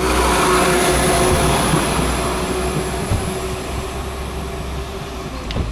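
Class 172 Turbostar diesel multiple unit running past close by and drawing away: diesel engine and wheel rumble with a steady high whine, slowly fading. A single short knock sounds near the end.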